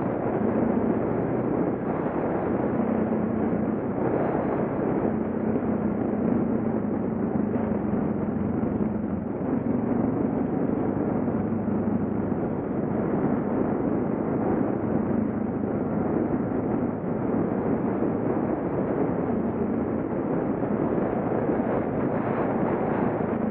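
Suzuki DR650's single-cylinder engine running steadily at cruising speed, with wind and tyre noise from riding a gravel road.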